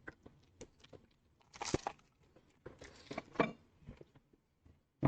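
Sour chewy taffy candies being unwrapped and eaten: scattered small clicks and short crinkling rustles of the candy wrappers, with soft chewing.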